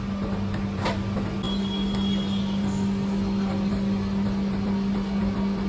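Steady electric machine hum, an even low drone, with a faint click about a second in.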